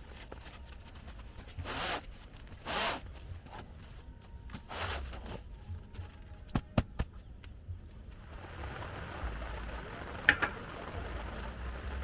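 Handling sounds around a tent: three or four short swishing rustles and two sharp clicks, then from about eight seconds a steady hiss of rain, with a single ringing metallic clink near the end.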